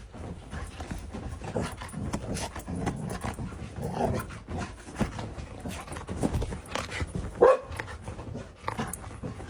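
A dog barking and vocalizing over and over, the loudest a sharp bark about three quarters of the way through.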